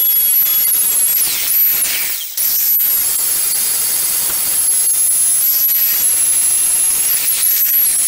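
Milwaukee cordless angle grinder with an abrasive disc grinding the paint off a steel saw blade: a loud, steady rasp of disc on metal under a high motor whine, which dips briefly in pitch a few times as the disc bears down. The sound drops out for a moment about two seconds in, then resumes.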